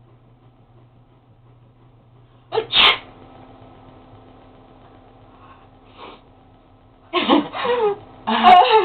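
A person sneezes once, sharply, about two and a half seconds in: a short intake and then the loud burst, brought on by something tickling the nose. Louder voice sounds follow near the end.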